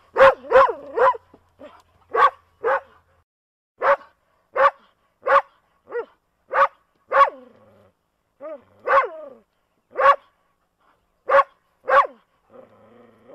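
A dog barking repeatedly: a quick run of three barks at the start, then single barks spaced about half a second to a second apart.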